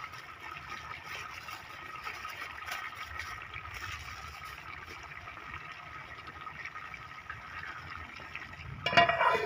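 Chicken and tomatoes sizzling steadily in a metal pot over a wood fire, a soft crackling hiss. A brief louder sound comes near the end.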